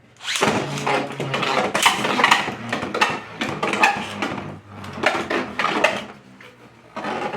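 Spinning Beyblade tops, one of them 3D-printed, clattering against each other and the stadium walls in a rapid run of hard plastic clicks and knocks. The clatter dies down near the end, then comes back in a short burst.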